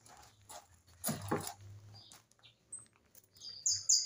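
A small bird chirps in quick, high, falling notes near the end. Before that there is a brief rustle of handling about a second in, over a faint low hum.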